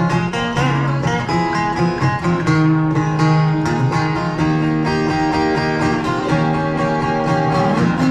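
Live music: an acoustic guitar strummed in a steady rhythm through an instrumental passage between sung lines.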